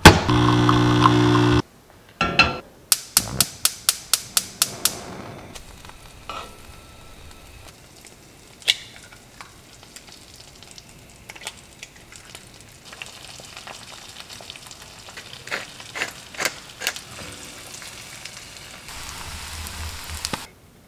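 A Nespresso coffee machine's pump hums loudly for about a second and a half, then cuts off. A quick run of clicks follows, then eggs frying and sizzling in a nonstick pan, louder near the end.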